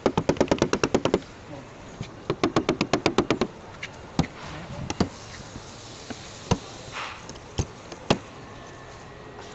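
Paintless dent repair tools working on a car door panel: two quick runs of sharp taps, about ten a second, then single sharp knocks a second or so apart.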